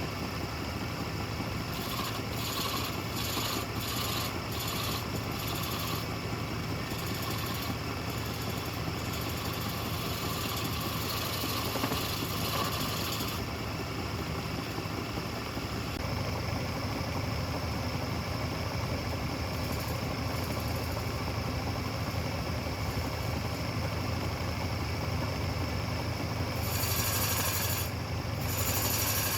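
Wood lathe motor running with a steady hum, while a turning tool cuts into the spinning wood in stretches of hissing, scraping noise, most of them in the first half and again near the end.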